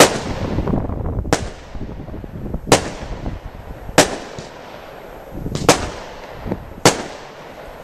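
Lesli 'Tatjana' (Soviet Shooters) 30-shot, 30 mm consumer firework cake firing, with about six sharp bangs in a row, roughly one every second and a half.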